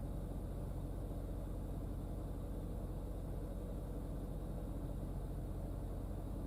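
Steady low mechanical hum with a fast, even pulse, from a running motor.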